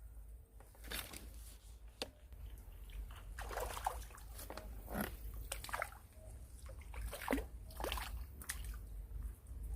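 Irregular splashing and sloshing of water, a dozen or so short splashes and knocks at uneven intervals.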